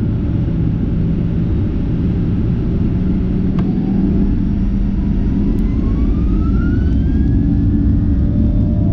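Boeing 737-800's CFM56 jet engines heard inside the cabin: a steady, heavy rumble. A few seconds in, a whine rises in pitch and then levels off near the end as the engines spool up.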